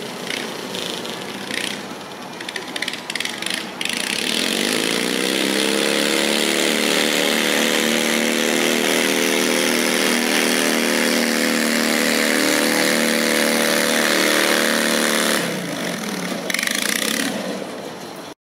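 Small garden pulling tractor's engine run hard while dragging a weight-transfer sled. It comes in strongly about four seconds in, rises slightly in pitch, then holds steady for about eleven seconds before dropping off sharply.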